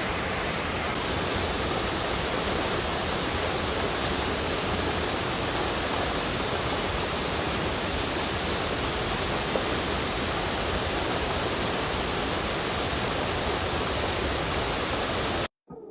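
Waterfall rushing: a steady, loud hiss of falling water with no change, cutting off abruptly just before the end.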